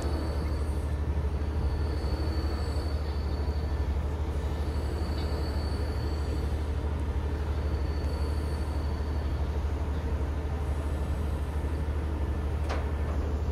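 Technical Park Street Fighter pendulum ride's machinery running with the arm hanging at the bottom: a steady low hum with a faint high whine that comes and goes, and one sharp click near the end.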